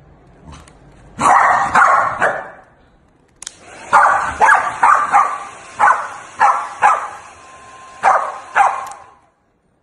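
Corgi barking at a hair dryer in short sharp bursts: three quick barks, then about nine more after a pause, over a steady hiss of blowing air.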